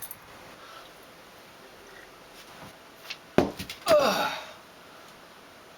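A sharp knock with a few quick clicks after it, followed by a short yell that falls in pitch.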